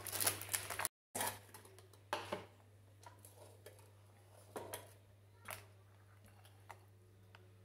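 Raw chicken gizzards and livers tipped from a plastic bag into an empty cooking pot, with plastic crinkling and pieces landing in the first second. A few scattered light knocks and clicks follow, over a low steady hum.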